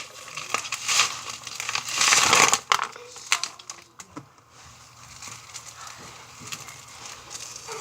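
Plastic shrink-wrap being pulled off a frozen pizza, crinkling and rustling in irregular bursts, loudest a couple of seconds in, then dying down to a light rustle.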